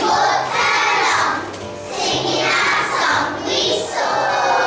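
A group of young children singing a song together over musical accompaniment, in phrases of about two seconds.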